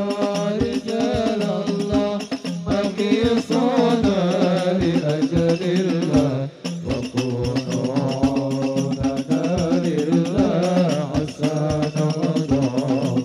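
Hadrah ensemble playing sholawat: rebana frame drums and hand drums beat a steady rhythm under a wavering male vocal melody, amplified through a sound system.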